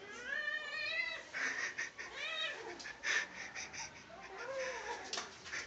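Kitten meowing: a rising call about a second long at the start, then a shorter call a little after two seconds, with short scratchy noises in between.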